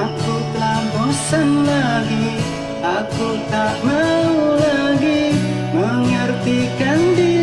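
Music: a slow pop ballad with guitar accompaniment and a sliding, wavering melody line over steady bass notes.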